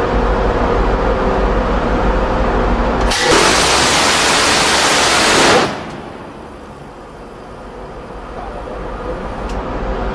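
Phalanx CIWS 20 mm six-barrel Gatling cannon firing one continuous burst of about two and a half seconds, starting about three seconds in and cutting off sharply. A steady hum of shipboard machinery runs before the burst; after it the background falls quieter and slowly comes back.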